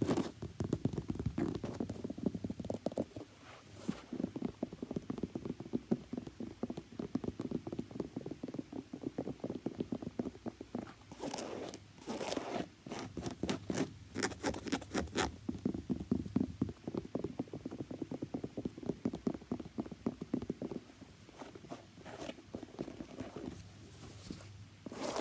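Fingers tapping rapidly on a shoe in a fast, continuous patter. Short spells of brighter scratching come a little before and after the middle.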